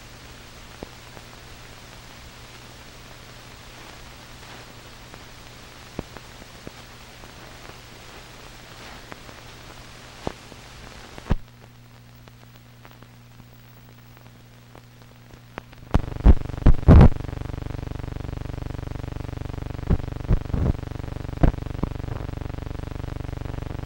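Surface noise of an old film print's soundtrack running out past the end of the film: steady hiss and low hum dotted with clicks and pops. About 11 seconds in the hiss drops away. About 16 seconds in a louder buzzing hum starts, with a cluster of loud pops and a few more pops after.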